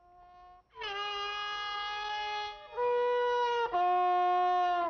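A bugle blowing long, steady held notes. After a faint short note at the start, one note begins a little before a second in, a higher note follows near three seconds, and then a lower note comes in a little after three and a half seconds and is held until speech begins.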